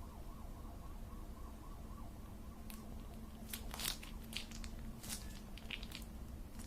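A handful of sharp, crisp crunches, clustered in the second half with the loudest a little past the middle.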